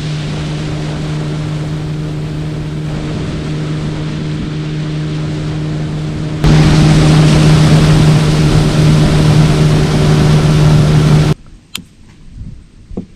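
Motorboat engine running at a steady speed, a loud even hum over the rush of wind and water. It grows louder about six and a half seconds in, then cuts off abruptly a couple of seconds before the end, leaving a quieter background with a couple of clicks.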